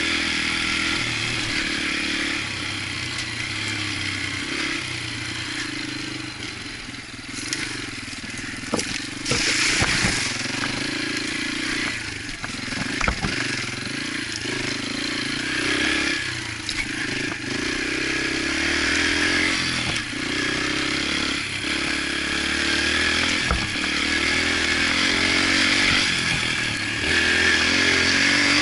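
Yamaha TTR125 trail bike's single-cylinder four-stroke engine running while riding, its pitch shifting with the throttle. Several sharp knocks and rattles come near the middle.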